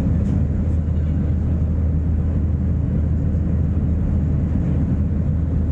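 Steady low drone of a jet airliner's engines and rushing air, heard inside the passenger cabin during the climb after takeoff.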